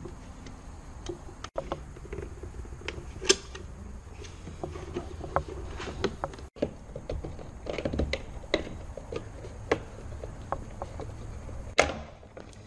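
Scattered sharp clicks and knocks over a low steady hum, broken by two brief dropouts.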